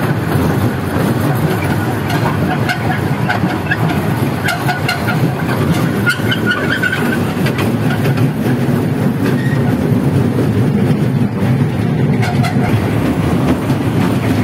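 Park toy train running along its track, heard from aboard a carriage: a steady rumble and rattle of the moving carriages, with occasional faint clicks.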